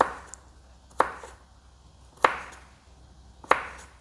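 Kitchen knife chopping carrot on a thick round wooden chopping board: four sharp, separate knocks of the blade striking through to the wood, a little over a second apart.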